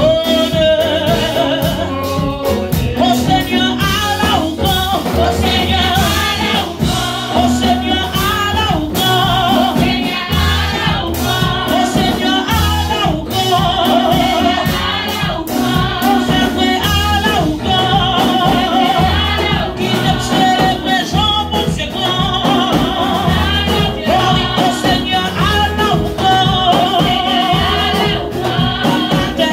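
A woman singing a gospel worship song in Haitian Creole through a handheld microphone and PA, her voice wavering with vibrato, over amplified band accompaniment with a steady drum beat and bass.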